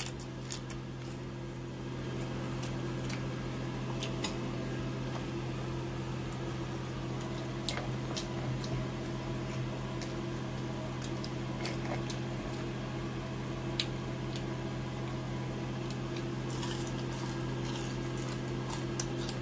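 Steady low machine hum, like a fan or appliance running, with a few faint clicks and taps scattered through it as food is handled at the table.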